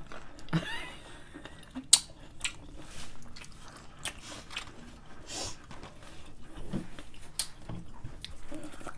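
Someone biting and chewing a crunchy dill pickle, close up: a sharp crunch about two seconds in, then irregular smaller crunches and wet chewing.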